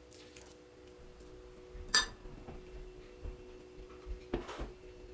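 A metal spoon clinks sharply against a glass mixing bowl about two seconds in while scooping samosa filling, with a softer knock near the end and a few faint taps. A steady faint hum runs underneath.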